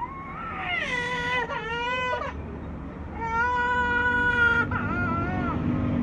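Toddler boy crying: a wavering wail about a second in, then a longer wail held at a steady pitch.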